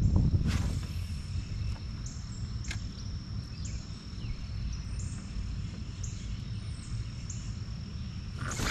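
Outdoor ambience: a steady high-pitched insect drone with short high chirps repeating about once a second, over a low rumble. A brief rustling sound comes just before the end.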